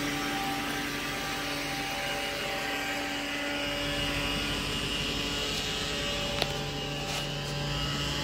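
Fuel-injected Ford 390 V8 in a vintage Ford pickup running steadily as the truck pulls away and drives slowly past, with one brief sharp click about two-thirds of the way through.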